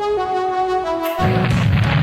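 Soundtrack music: held brass-like chords stepping down in pitch, giving way a little over a second in to a dense, heavy low rumble.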